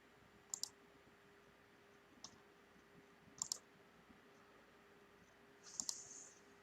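Faint computer mouse clicks: a few quick click pairs, each a press and release, spaced a second or more apart, over a low steady hum.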